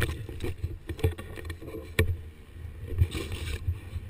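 Rumble and knocking from the microphone of an action camera being jostled against plastic. There are a few sharp knocks, one at the start and one about two seconds in.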